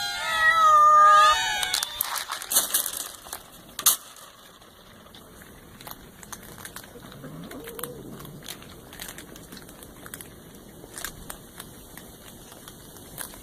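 A cat meowing several times in quick succession, the calls bending up and down in pitch, for about the first two seconds. After that, scattered small clicks and crackling rustles.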